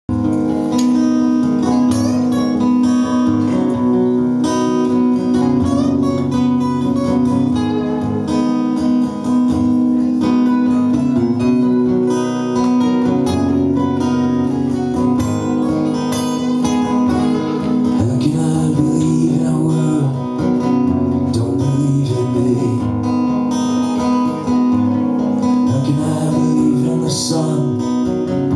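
Steel-string acoustic guitar strummed steadily, playing a song's intro.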